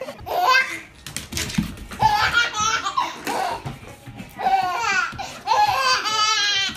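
A baby laughing in several high-pitched bursts, ending in a quick run of pulsing giggles.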